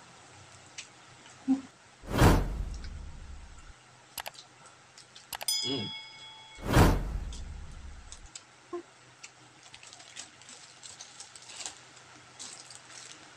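Subscribe-button animation sound effects: a whoosh about two seconds in, a click and a short bell chime around five and a half seconds, and a second whoosh about seven seconds in. Faint small clicks and crunches of eating by hand fill the rest.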